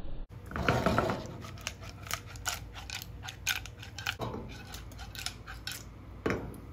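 Metal tongs clicking and scraping against a metal frying pan as pasta in tomato sauce is tossed and stirred, with a louder swish of the pasta moving about half a second in and again near the end.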